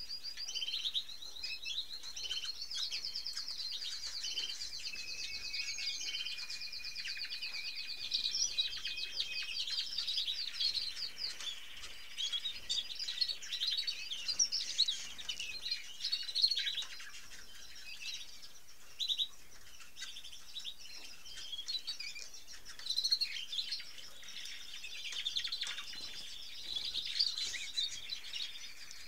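Caged red-factor canaries singing: long rolling trills of fast repeated notes for the first dozen seconds, then scattered short chirps and calls.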